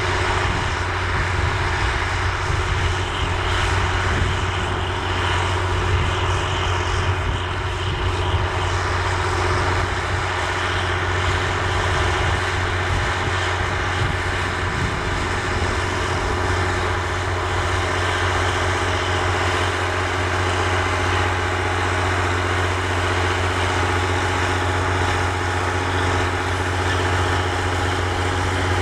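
John Deere 7020 tractor's six-cylinder diesel engine running steadily under load as it pulls a tillage disk, with a deep, even hum and a few steady higher tones over it.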